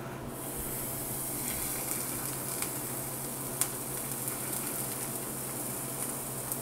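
Pancake batter sizzling as it is ladled onto a buttered cast iron pan: a steady sizzle that swells a moment in, with scattered small crackles.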